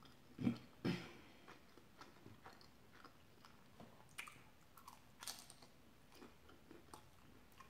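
A person chewing and biting into a crispy fried samosa: two louder wet chewing sounds about half a second in, then scattered crunches, the sharpest around four and five seconds in as a new bite goes in.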